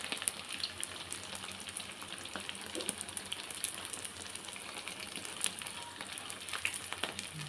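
Pieces of ulen, pounded glutinous rice cake, deep-frying in hot oil in a wok: a steady sizzle with many fine crackles and pops.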